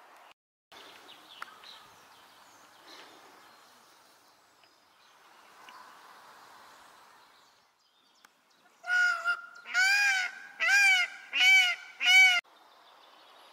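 Indian peacock calling: a run of about five loud, honking calls late in the stretch, each rising and falling in pitch, the first one longer and the last ones short and quick. Before them there is only faint outdoor background noise.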